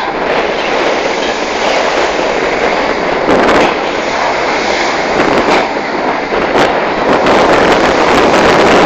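Strong wind buffeting the phone's microphone over a rough, choppy sea: a loud, steady rush broken by a few short, louder gusts.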